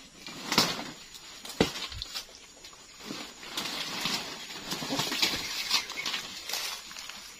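Leaves and stalks of giant swamp taro plants rustling and snapping, with a couple of sharp knocks in the first two seconds, as a plant is cut out with a hand tool.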